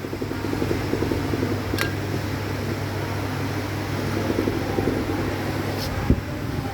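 A steady mechanical hum, like a fan, with a sharp click about two seconds in, then another click and a short dull thump near the end.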